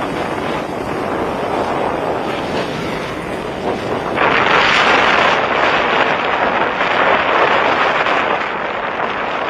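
Steady rush of high floodwater, with wind buffeting the microphone. About four seconds in it abruptly becomes louder and hissier.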